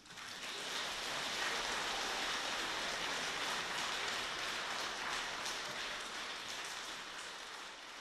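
Concert audience applauding at the end of a choir's song: the clapping starts suddenly, holds steady and thins a little near the end.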